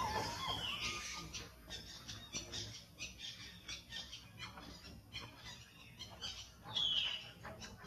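Macaque squealing: two short high calls that fall in pitch, one near the start and one near the end, with soft scattered clicks in between.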